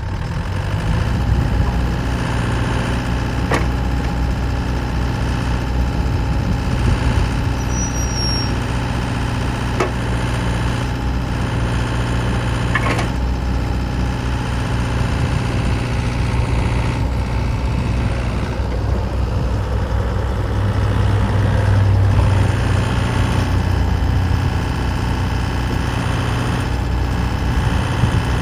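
Bobcat E63 compact excavator's diesel engine running steadily as the boom and arm are worked, its note getting slightly louder about three-quarters of the way through, with a few faint clicks.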